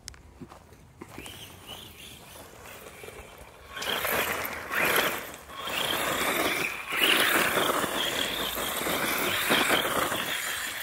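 Electric RC desert truck doing donuts in loose dirt: its motor whines and the spinning tyres scrabble and spray dirt, the noise getting loud about four seconds in and staying up until near the end.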